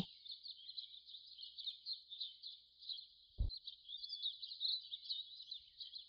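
Faint rainforest ambience: a continuous chorus of high, chirping calls. A brief low thump comes about three and a half seconds in.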